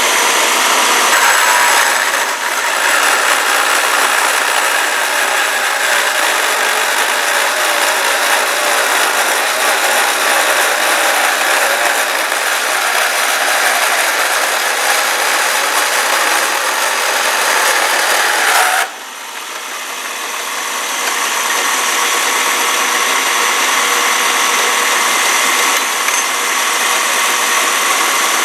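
Vertical bandsaw with a bimetal blade cutting 1/8-inch steel flat bar, driven by a geared variable-speed motor: a loud, steady cutting noise. About two-thirds of the way through the sound drops suddenly as the blade comes through the bar, and the saw runs on.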